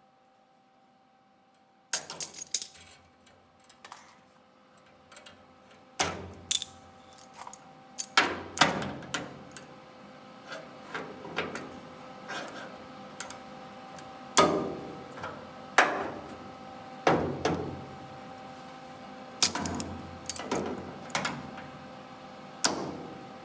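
Metal clinking and knocking at an irregular pace, typical of hand tools being picked up and worked against sheet-metal panels, starting about two seconds in over a faint steady hum.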